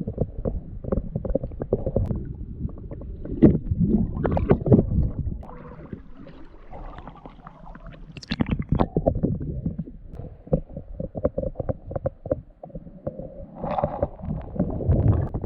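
Muffled water sloshing and gurgling close against the microphone, with many short crackles and splashes, as a person drifts and paddles through a shallow river with the camera at the water's surface.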